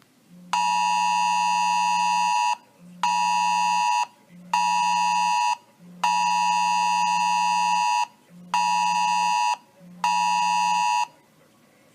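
Smartphone sounding the Wireless Emergency Alert attention signal for the Presidential Alert test: loud steady alarm blasts in a pattern of one long and two short, given twice, with a low buzz under each blast.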